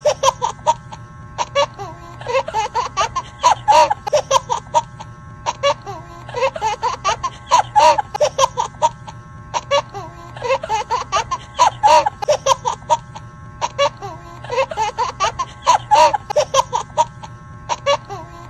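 A canned laughter sound effect, a burst of giggling laughs repeated in a loop about every four seconds, over a steady background music track.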